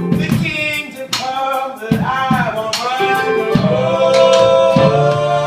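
A song sung with instrumental accompaniment. The singer holds one long note through the second half over a regular rhythmic beat.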